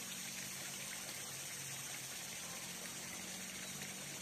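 Steady outdoor background: an even hiss with a faint low hum underneath, and no distinct event.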